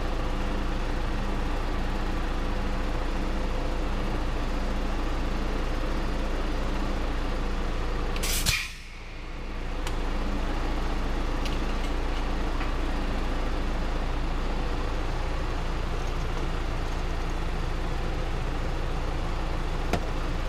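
Tractor diesel engine running steadily. About eight seconds in there is a short, sharp air hiss, like an air-brake release, after which the engine sound dips for a moment and comes back.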